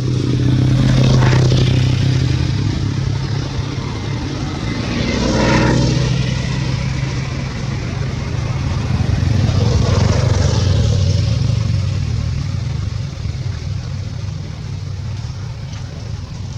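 Motor engine noise: a steady low hum that swells louder three times, a few seconds apart.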